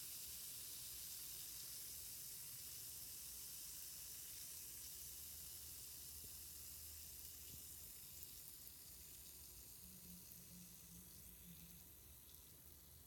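Faint, steady fizzing of a LUSH Uluru bath bomb's leftover foam on the bathwater, slowly dying away.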